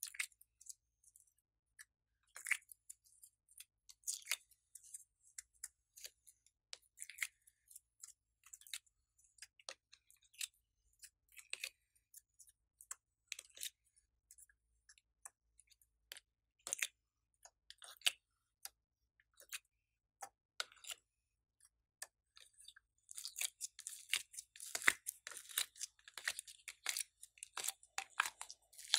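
Glossy slime being pushed out of a clear plastic cube tray, giving scattered soft clicks and sticky pops. Near the end a handful of slime is squeezed and pulled, and the pops become a dense, steady crackling.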